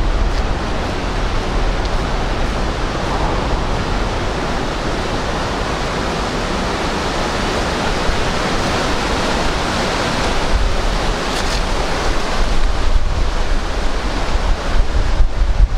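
Steady rushing noise of wind and fast, churning tidal water around bridge piers, with wind buffeting the microphone and growing gustier near the end.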